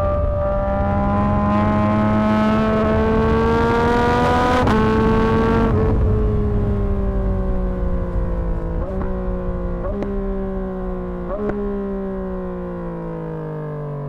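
2024 Yamaha MT-09's inline three-cylinder engine, breathing through a Dominator HP6 exhaust, pulling hard at full throttle with a rising pitch and one upshift about four and a half seconds in. Then the throttle closes and the note falls away on engine braking, with three downshifts, each a short jump in pitch.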